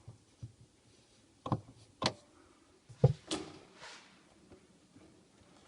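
Kitchen drawer being tried on its freshly realigned glides: a few sharp knocks, the third the loudest, then a rushing slide of about a second as the drawer runs along its runners.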